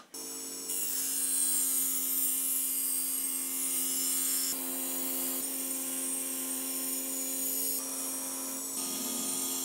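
Motor-driven wire brush wheel spinning with a steady hum while its bristles scrub rust off a steel cleaver blade, giving a high hiss on top. The sound shifts abruptly several times.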